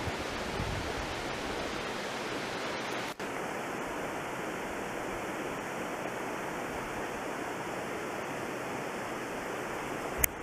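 Steady rushing of a mountain stream, with low wind rumble on the microphone in the first three seconds; the sound drops out for an instant about three seconds in, and a short click comes near the end.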